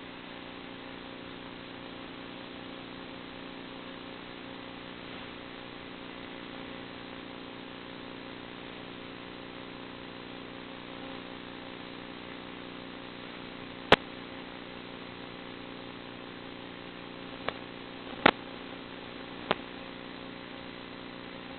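Steady buzzing hum of a small electric-powered FPV plane's motor and propeller at constant throttle, heard over a hiss, with four sharp clicks in the last part, the loudest about two-thirds through.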